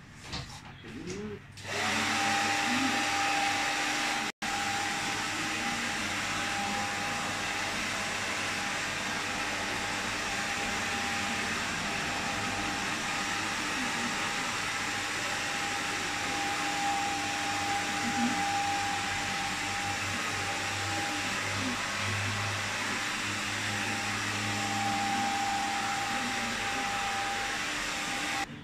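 Electric hair clippers running steadily with a hum and hiss while trimming the back of the neck. The sound starts abruptly about two seconds in and drops out for an instant a couple of seconds later.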